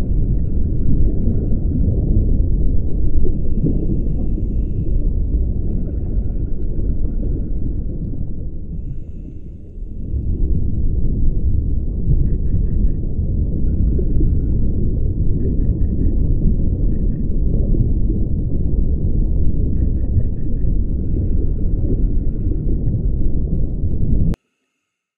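Underwater ambience recorded through a dive camera's housing: a steady low rumble of water noise that dips briefly about ten seconds in, with faint bursts of quick ticking now and then. It cuts off abruptly near the end.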